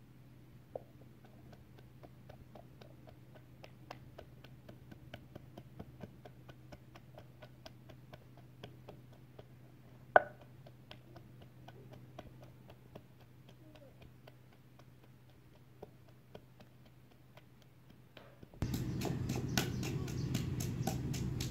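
Wooden pestle pounding garlic cloves and red chilies in a wooden mortar: faint ticking and one loud knock about halfway through, then louder, regular strikes over a steady low hum near the end.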